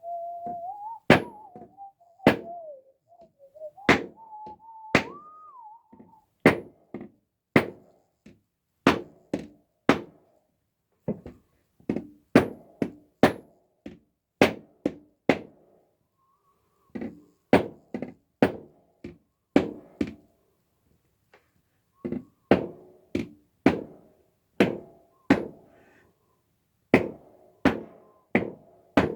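Repeated hammer knocks, about one a second, each ringing briefly, with short pauses about sixteen and twenty-one seconds in. A wavering higher tone sounds over the first six seconds.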